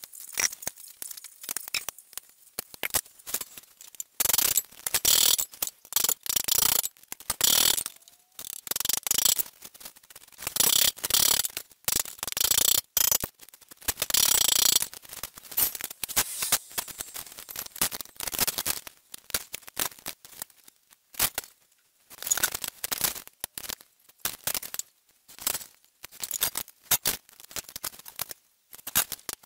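Tin snips cutting thin galvanized sheet steel in repeated cuts of a second or two each, mixed with sharp metallic taps from a hammer and the clatter of the sheet being handled.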